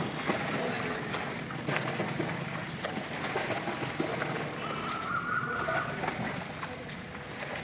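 Pool water sloshing and splashing as a swimmer strokes through it, a steady wash of water noise with small splashes.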